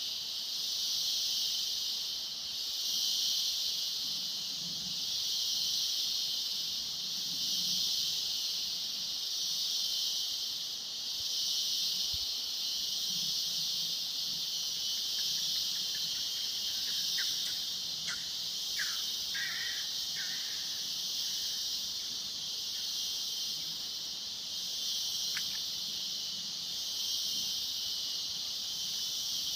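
A chorus of insects buzzing in a steady high drone that swells and fades every couple of seconds. A few short high chirps come in the middle.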